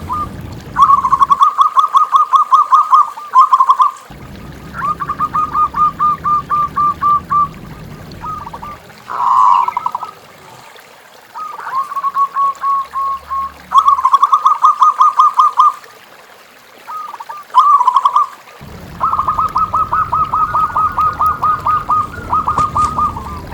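Zebra dove (perkutut) calling: repeated bursts of rapid, short cooing notes, each run lasting a second or two, with brief pauses between runs.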